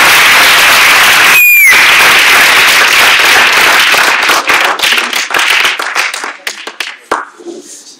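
Audience applauding, a dense wash of clapping that thins to scattered individual claps after about four seconds and dies away near the end.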